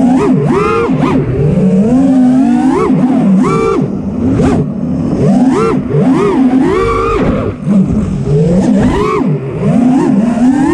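FPV racing quadcopter's brushless motors and lightweight prototype propellers whining, the pitch surging up and dropping back sharply about once a second as the throttle is punched and chopped through fast turns.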